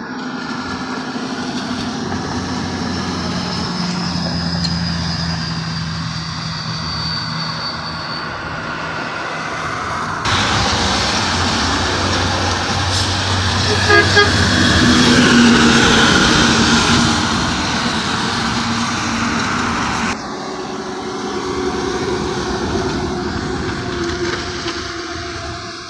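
Road traffic on wet pavement: car and truck engines running as they pass, with tyre hiss on the wet road. A louder vehicle passes close about halfway through, and the sound changes abruptly twice at cuts in the footage.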